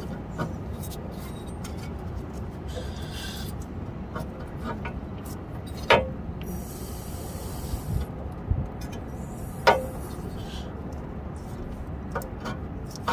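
Scattered light metallic clicks and knocks of a tie rod and tools being worked into the steering linkage, with two sharper clinks that ring briefly, about six seconds in and again nearly four seconds later, over a steady low rumble.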